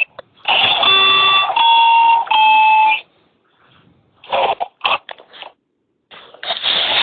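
Audio played through an Oticon sound-field FM speaker system: three held electronic tones, each a different pitch, sounding one after another for about two and a half seconds. A short silence follows, then a few brief bursts of sound.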